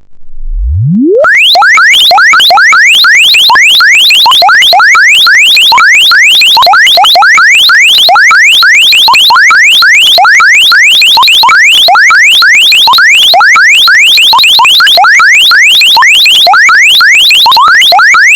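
Electronic mobile-phone ringtone, very loud. It opens with a low tone sweeping upward for about a second, then turns into fast rising synthetic chirps repeating several times a second.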